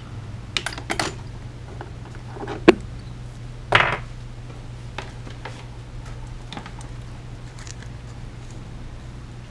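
Steel pliers and hand tools clinking and set down on a wooden workbench: a few scattered clicks, a sharp clink nearly three seconds in and a short clatter about a second later, over a steady low hum.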